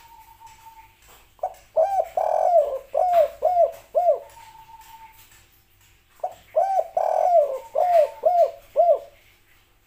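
Spotted dove cooing: two phrases of short, arching coos, the first starting about a second and a half in and the second about six and a half seconds in. Each phrase has one longer, drawn-out note near its start, followed by a quick run of three or four short coos.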